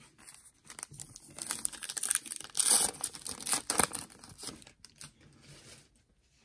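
A foil trading-card pack is torn open and its wrapper crinkles, loudest about halfway through. Near the end it quietens to the soft sound of the cards being handled.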